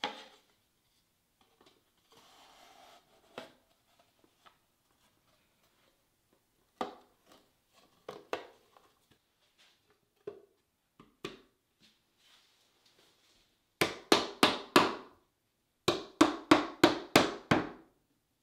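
A soft-faced mallet tapping the dovetail joints of a walnut case home during glue-up: a quick run of about five taps, a short pause, then about eight more. Earlier come scattered single knocks and a brief scrape as the wooden parts are fitted together.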